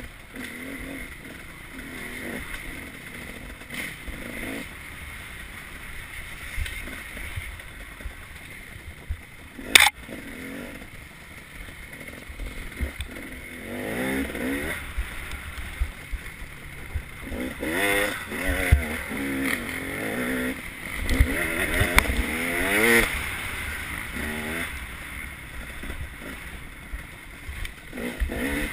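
Off-road motorcycle engine revving up and down as it is ridden hard along a dirt trail, the pitch rising and falling over a low rumble. One sharp, loud knock about ten seconds in.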